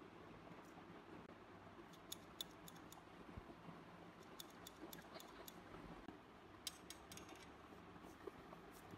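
Faint, sharp clicks and taps of small steel parts as a Beretta 1934 pistol frame is handled and worked on, in small clusters about two seconds in, around five seconds in and near seven seconds, over quiet room tone.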